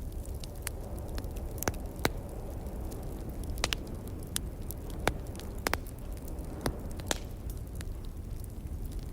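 Burning logs in a fireplace crackling, with irregular sharp pops, over a steady low rumble of wind.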